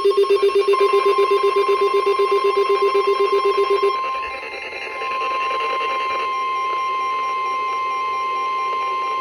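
NOAA Weather Radio 1050 Hz warning alarm tone, one steady high beep that alerts receivers to a tornado warning. Over the first four seconds a lower beep pulses rapidly under it, about seven or eight times a second, then stops.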